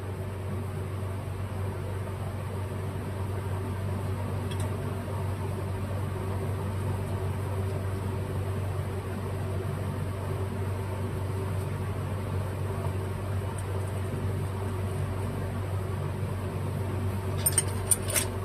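Steady low hum of a small motor, with a few light clicks of small metal parts being handled about four seconds in and near the end.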